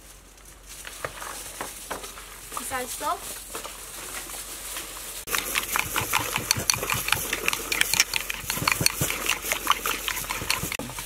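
Metal spoon stirring and scraping a thin sauce in a glass bowl: quick clinks and scrapes, several a second, getting denser and louder about halfway through.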